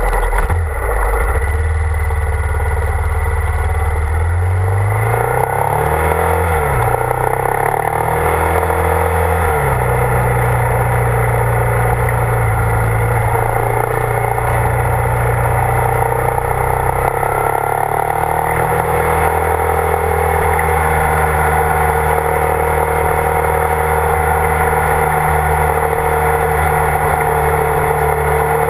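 Motorcycle engine under way, rising in pitch several times in the first ten seconds as it accelerates through the gears, then running at a steady pitch, with wind noise over the bike-mounted camera.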